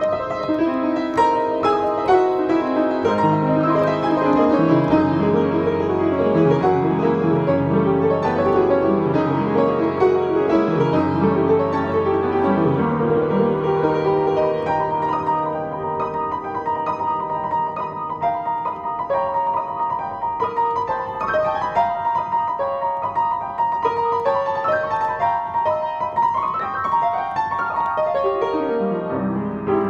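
Solo upright piano playing a fast, flowing classical piece in dense running notes. Deep bass notes sound through the first half, the middle stays in the higher register, and the bass comes back near the end.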